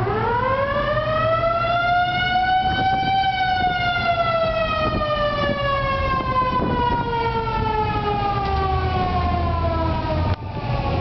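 A siren winds up into one long wail, rising in pitch over about three seconds, then slowly falling and fading away. Low engine and traffic rumble runs underneath.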